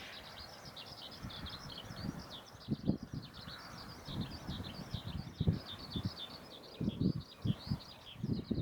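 Small birds chirping continuously in a dense, overlapping chorus, with irregular low thumps underneath.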